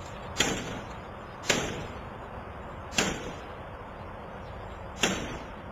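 A steel crowbar striking a window security screen four times, sharp hits about one to two seconds apart, each with a brief ringing decay.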